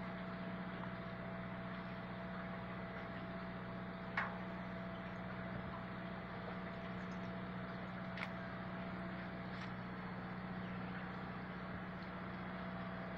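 Boat's engine running slowly, a steady low hum with a faint higher whine over it, as the boat comes in toward a landing ramp. Two short sharp clicks break through, about four seconds and eight seconds in.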